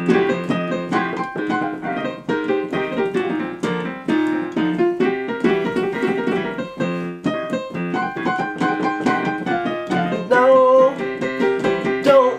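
Electronic keyboard with a piano sound, played in a continuous instrumental passage of chords and melody, getting louder about ten seconds in.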